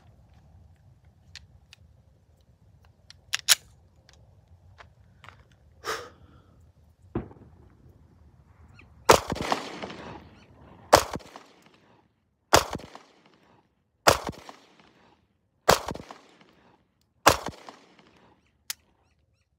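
Walther PPS M2 9mm pistol fired six times at an even pace, about one shot every second and a half, emptying its six-round magazine. A few lighter clicks and knocks of handling the pistol come before the first shot.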